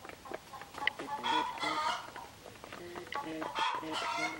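Chickens clucking with short repeated low notes, and two louder, harsher calls, one about a second in and one near the end, over sharp taps of beaks pecking grain off concrete.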